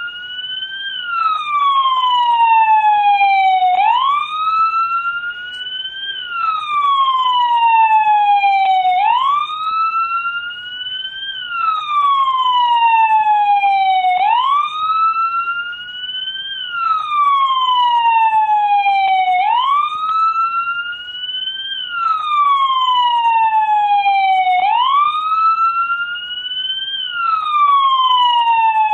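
American police car siren sounding in wail mode: a slow, even rise and fall in pitch, about one cycle every five seconds, repeating steadily.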